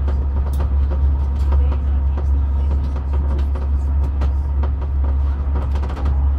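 Passenger train running, heard from inside the carriage: a steady low rumble with irregular light clicks over it.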